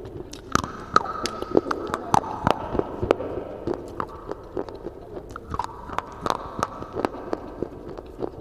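Baked clay being bitten and chewed close to the microphone: a run of sharp, crisp crunches, about two to three a second.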